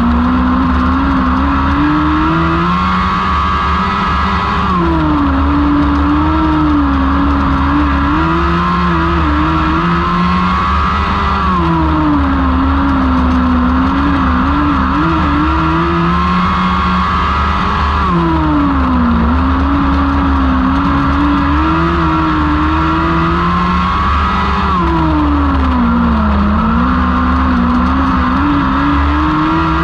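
1000cc Lightning sprint car engines racing around a small dirt oval. The engine pitch climbs down each straight and drops into each turn, repeating about every six to seven seconds over a steady low rumble.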